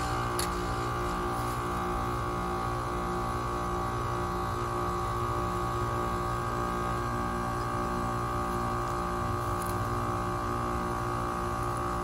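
Rheem Classic 14 SEER heat pump outdoor unit in defrost: the compressor runs with a steady hum while the outdoor fan stands still. A slow, even pulsing runs through the low drone.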